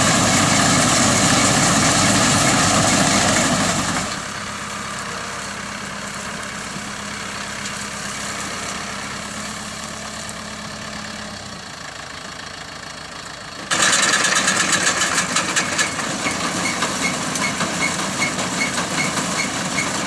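Kubota tractor engine running while it pulls an old pull-type combine harvesting rice, the combine's threshing machinery clattering and rattling. The sound drops to a quieter, steadier hum about four seconds in and comes back loud with a fast rattle about fourteen seconds in.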